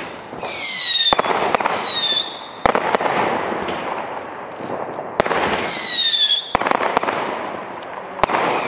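Golden Eye Black Mamba 0.6-inch, 604-shot firework cake firing: four whistling shots, each a falling whistle about a second long, amid sharp bangs and a crackling hiss.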